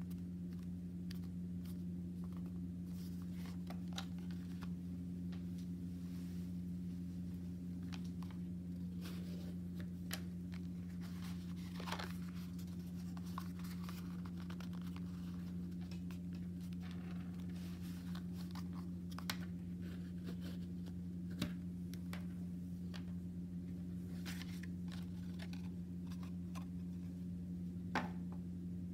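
Paper being folded and creased by hand, soft rustling with scattered clicks and taps, over a steady low hum.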